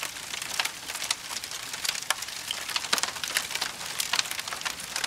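Small wood and dry-grass fire crackling, with irregular sharp pops over a steady hiss.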